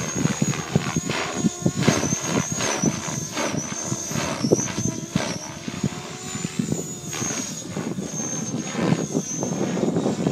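Align T-Rex 550 electric RC helicopter flying, its high whine wavering in pitch as it manoeuvres, under irregular gusty buffeting on the microphone.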